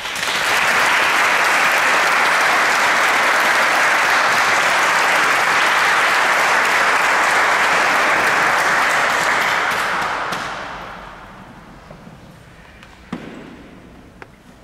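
Audience applauding for about ten seconds, then dying away, with a faint knock a couple of seconds later.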